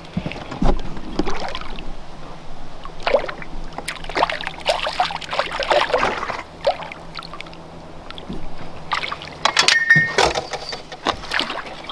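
A hooked crappie splashing and thrashing at the water's surface beside a small fishing boat as it is reeled in and lifted to the side, with a few sharp knocks and clicks near the end.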